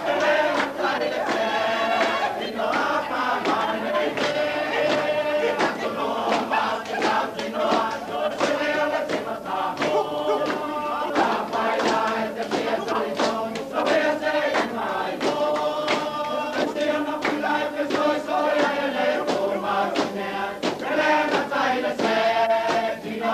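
Group singing of a Samoan dance song, many voices chanting together over a steady beat of struck percussion.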